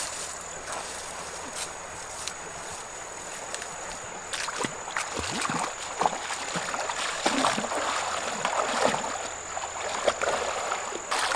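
Flowing shallow river water, then from about four and a half seconds in, irregular splashing and sloshing of feet wading through it. A thin steady high-pitched tone sounds throughout.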